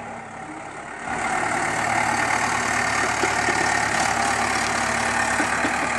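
Heavy machinery's diesel engine running steadily, getting louder about a second in.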